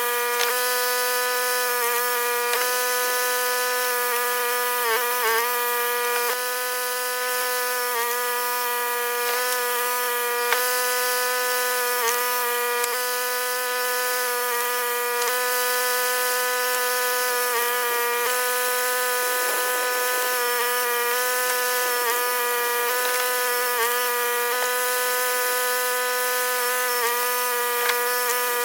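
Powered log splitter running at a steady pitch, the pitch dipping briefly every second or two as it works through the wood.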